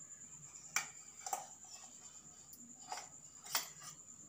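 A steel spoon clinking four times against a stainless-steel mixer-grinder jar as flour is spooned in, short sharp clinks spread across a few seconds.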